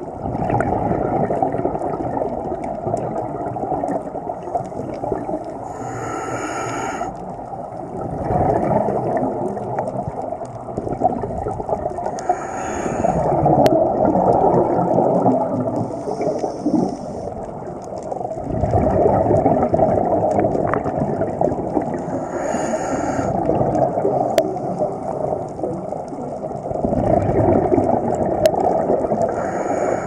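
Scuba diver breathing through a regulator underwater: a short hiss of inhalation every few seconds, alternating with long gurgling rushes of exhaled bubbles.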